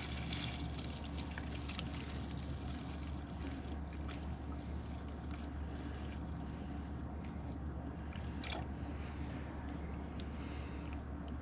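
Evapo-Rust rust-remover liquid pouring and trickling steadily into a tote holding the revolver parts, with a few faint ticks.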